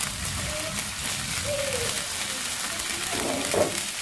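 Chicken pieces in coconut-milk percik sauce sizzling in a hot non-stick frying pan, a steady even hiss.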